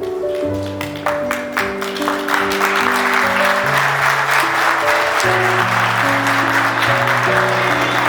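Audience applause over music with a slow melody of held notes: scattered claps about a second in build into steady applause by about two seconds in.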